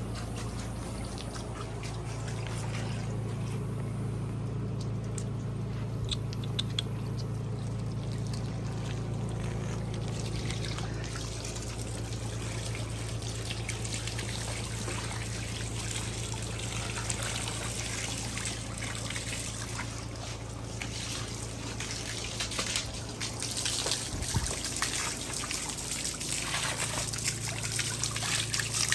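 Water from a garden hose running and splashing while a miniature horse is washed, with a steady low hum underneath. The spray gets heavier and louder over the last several seconds.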